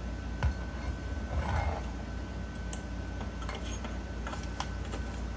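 A few light clicks and clinks as a chrome exhaust pipe is handled and offered up against a scooter's engine casing, with a short rustle about a second and a half in, over a steady low hum.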